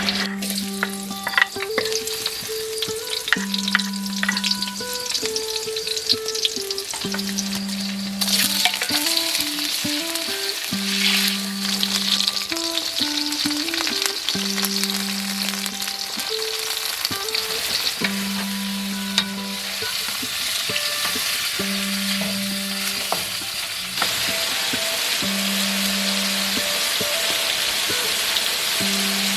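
Food frying in hot oil in a pan, with a steady sizzle and scattered scrapes and clicks from stirring. Quiet background music plays underneath.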